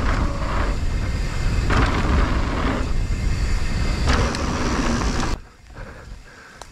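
Wind on the microphone and the rattle of a mountain bike ridden fast over a dirt trail, dropping away suddenly to much quieter about five seconds in.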